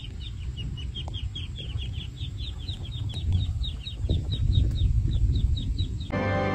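Baby chicks peeping: a steady run of short, high, falling cheeps, about four a second, over a low rumbling background noise.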